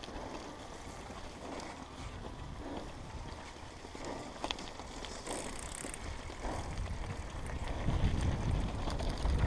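Mountain bike rolling over a grassy dirt trail: tyre rumble with scattered rattles and clicks from the bike. Wind on the microphone grows louder over the last couple of seconds as the bike picks up speed.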